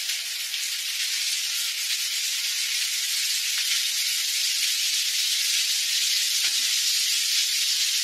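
Water pouring from a 12-inch square rainfall shower head, a steady hiss of spray that grows slightly louder.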